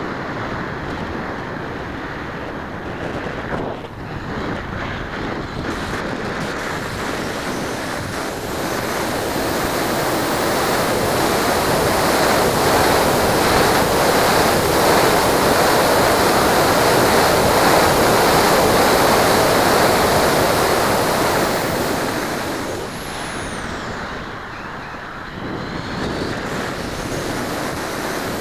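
Air rushing over the onboard camera of an RC model plane in flight: a steady windy roar on the microphone that swells through the middle as the plane dives toward the field, then eases off. A faint high whine glides up and down near the start and the end.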